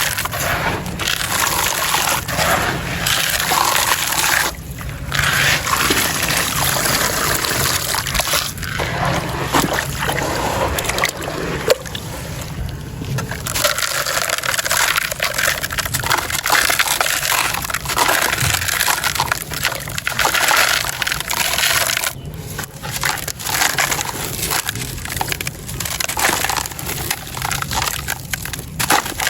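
Gritty sand stones crumbling into water in a bowl: continuous wet, crunchy crumbling and sloshing, broken by a few brief pauses.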